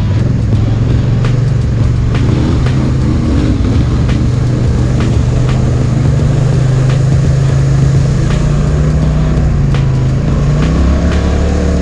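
Polaris ATV engine running at part throttle while riding a muddy trail, its pitch rising a little midway and shifting near the end, with scattered sharp knocks and ticks from the rough ride.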